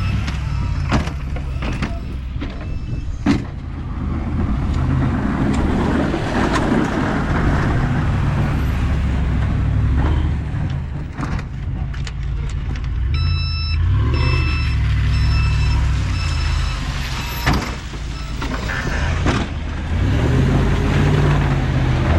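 Snowplow truck engine running with a steady low rumble, with several sharp knocks. A reversing beeper sounds a run of short, evenly spaced beeps about two-thirds of the way through.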